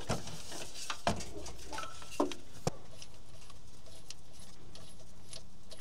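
A few light metallic clicks and knocks from hand work on engine parts, one about a second in and two more close together past the middle, over a faint steady hum.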